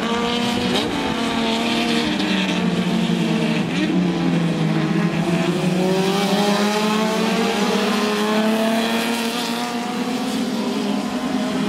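A pack of Turismo 4000 Argentino race cars running flat out, several engine notes overlapping. The engines fall in pitch around the middle and then rise steadily again.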